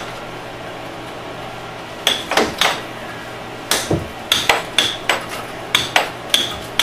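Air hockey puck clacking sharply off plastic mallets and the table's rails in a quick rally, over the steady hiss of the table's air blower. The first two seconds hold only the hiss, then about a dozen clacks follow, several a second.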